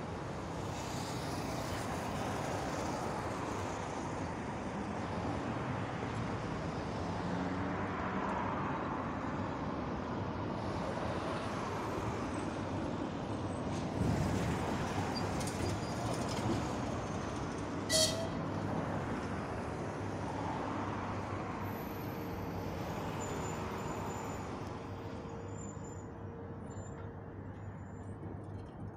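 ChS8 electric locomotive moving slowly through the station, a steady hum and rumble, with a single sharp clank about eighteen seconds in.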